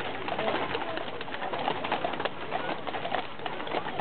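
Cavalry horses' hooves clopping irregularly on an asphalt street as a mounted column walks past, over the murmur of a crowd.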